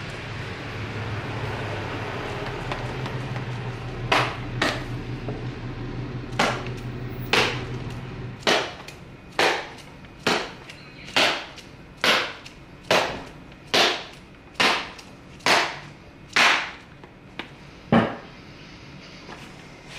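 A new leather softball glove's pocket being struck hard again and again to break it in, about fifteen sharp slaps roughly one a second that begin about four seconds in. A low steady hum runs under the first half.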